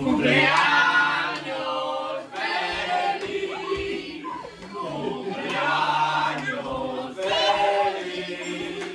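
A group of people shouting and cheering together in a surprise greeting, in four long bursts.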